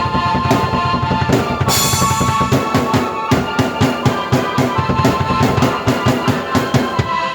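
Drum kit and keyboard played together: a busy beat of bass drum and snare with a cymbal crash about two seconds in, over sustained keyboard chords. Right at the end the drums drop away and the keyboard carries on alone.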